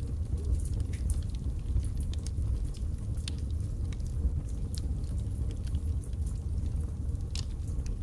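Wood fire burning in a fireplace: a steady low rumble of flames under scattered sharp crackles and pops from the burning logs, with one louder pop about seven seconds in.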